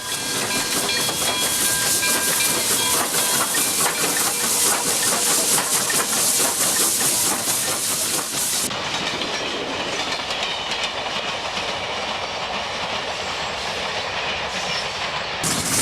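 Train running on rails, wheels clattering over the rail joints with a steady hiss. The sound changes abruptly a little past halfway, turning duller.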